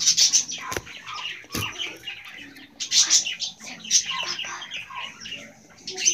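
Birds chirping over and over, with a couple of sharp knocks from the camera being handled in the first two seconds.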